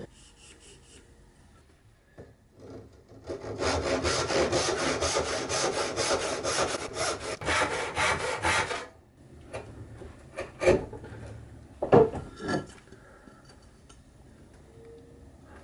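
Backsaw cutting a cherry tenon to size in rapid back-and-forth strokes for about five seconds, followed by a few sharp knocks of wood and tools being handled on the bench.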